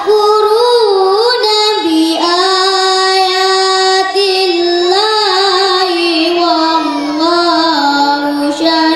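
A boy reciting the Quran in the melodic tilawah style into a microphone: long held phrases with wavering, ornamented pitch, with a short break about two seconds in.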